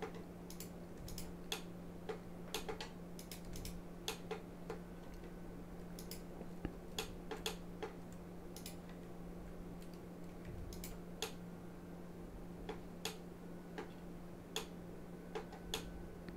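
Faint, irregular clicks of a computer mouse and keyboard, a couple of clicks every second or so, over a steady low hum.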